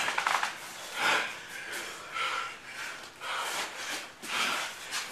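Fighters breathing hard during sparring, with short sharp exhales and snorts through the nose about once a second.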